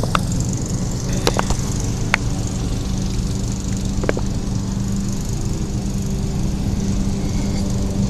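A steady low machine hum with a few short, sharp clicks: around the first second and a half, again about two seconds in, and once about four seconds in.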